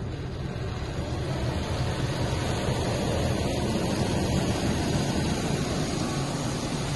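Automatic car wash water jets spraying onto a car's windshield and body, heard from inside the cabin as a steady rushing hiss over a low hum.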